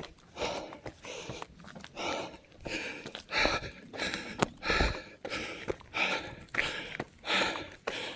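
A runner breathing hard and rhythmically while running uphill, a heavy breath about every two-thirds of a second, with footsteps on the trail.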